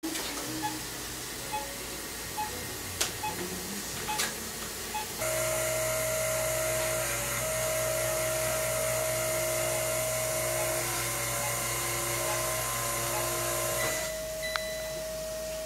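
Operating-room equipment: short high beeps about once a second, then about five seconds in a steady motorised hiss with a humming whine under it that runs for about nine seconds and stops.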